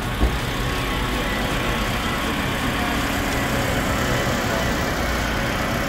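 A motor vehicle's engine running steadily at idle, with a single brief thump about a quarter of a second in.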